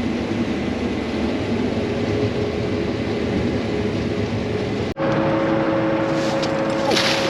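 Combine harvester running steadily, a loud even machine hum with fixed tones. About five seconds in the sound cuts off abruptly and resumes as a similar steady hum carrying a higher, clearer tone, with a brief hiss near the end.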